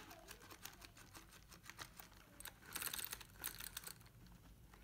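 Faint clicks and light rattles of plastic parts as a 1/12-scale RC buggy's front wheel and suspension are handled and turned by hand, with a quick run of clicks about three seconds in.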